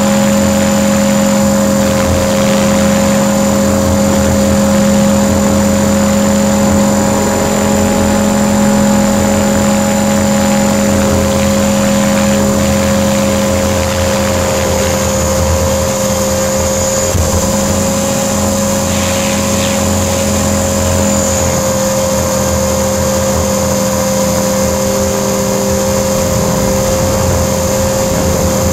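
Align T-Rex 500 RC helicopter heard from its onboard camera in fast forward flight: a steady motor and drivetrain whine over rotor hum and wind rush, holding an even pitch.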